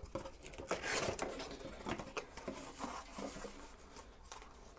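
Cardboard packaging being handled: scraping and rustling of cardboard sliding against cardboard, with light ticks and taps. It is loudest about a second in.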